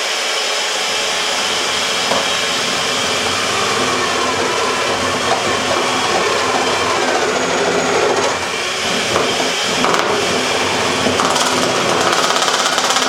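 A cheap electric hand-held food mixer running steadily at speed, with a latex balloon caught on its beaters rubbing and scraping against them.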